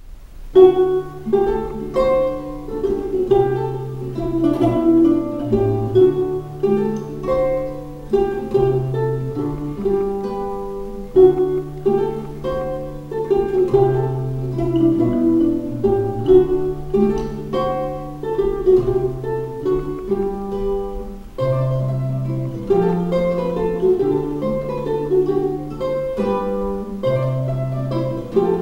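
Ukulele and nylon-string classical guitar playing a mazurka as a duet, plucked notes over a bass line, starting about half a second in.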